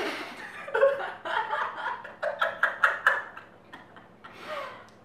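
People laughing in short, choppy bursts of giggling and snickering, fading toward the end.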